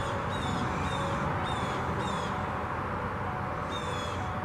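A bird calling over and over: short high calls, each falling slightly at the end, about two a second in two runs with a pause between. Under them is a steady rushing wash of the river.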